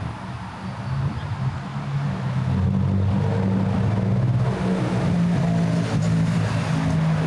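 Street traffic with a large motor vehicle's engine running close by, growing louder from about a second in, then holding a steady low drone.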